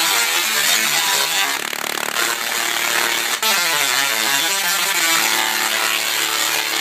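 10 kVA double-resonant solid-state Tesla coil (DRSSTC) playing a MIDI tune through its arcs: a harsh buzzing tone that steps from note to note, with the pitch gliding down and back up partway through, then holding steady notes.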